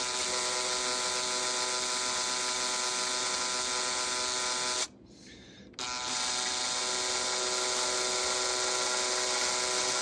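Cordless drill motor whining steadily as it spins a radio knob against a scouring sponge to polish off spin marks. It stops for about a second near the middle, then starts again.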